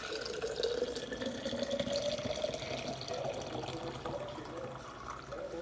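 Watermelon juice poured in a steady stream from a plastic juice jug into a glass mason jar, the pitch of the filling rising as the jar fills.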